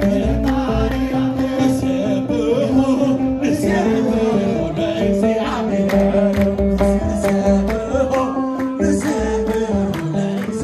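Group of men singing a traditional Eritrean Orthodox wedding song, with kebero drums beaten by hand and hand clapping keeping a steady beat.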